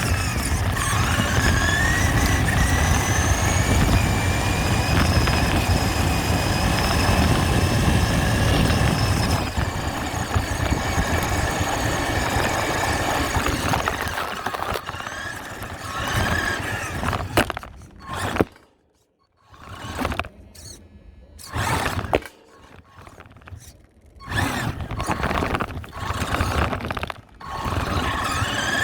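RC truck motor whining over a hissing noise, its pitch gliding up and down as the throttle changes. In the second half it cuts out several times between short bursts.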